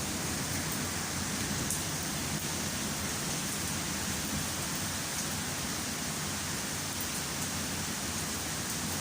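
Heavy rain pouring down steadily in a thunderstorm, an even hiss of rain with a few sharp drop ticks.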